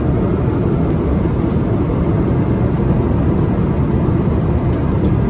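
Steady low cabin noise of an Airbus A321 airliner in cruise, its engines and the airflow over the fuselage heard from a window seat.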